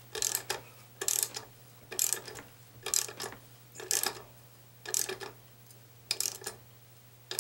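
Socket ratchet clicking in short runs about once a second, each run a backswing of the handle, while it turns a stud into a small engine's cylinder by a pair of jam nuts.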